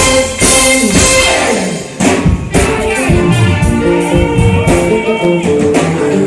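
Live worship music with singing and a band: guitar, tambourine and drums, in a large hall. The music dips briefly about two seconds in, then carries on with steady held notes.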